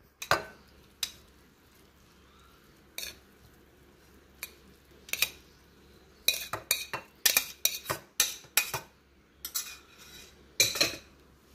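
Stainless steel slotted spoon knocking and scraping against a metal pressure cooker as cooked rice is scooped out into a bowl: a few separate clinks at first, then a quick run of clinks and taps in the second half.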